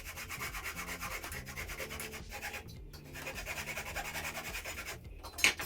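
Flush-cut saw cutting through glued-up wood in quick, short strokes, with a brief pause partway through, then a single sharp click near the end.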